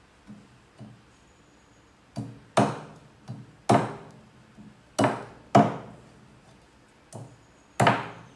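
Meat cleaver chopping on a round wooden cutting board: about eight sharp chops from about two seconds in, mostly in pairs, a lighter stroke followed by a heavier one, with a couple of faint taps before them.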